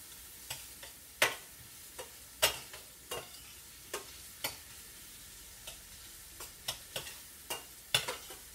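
A spoon stirring sliced bell pepper, mushrooms and onion sautéing in butter in a skillet, knocking and scraping against the pan in irregular clicks over a faint sizzle.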